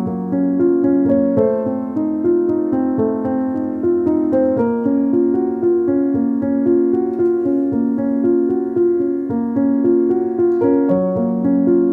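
Background piano music with a steady pulse of repeated chords, played back sped up.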